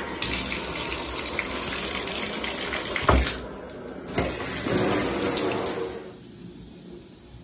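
Water running full from a bathtub faucet just after the single-lever shower valve is turned on, with a sharp knock about three seconds in. The water sound stops about a second before the end.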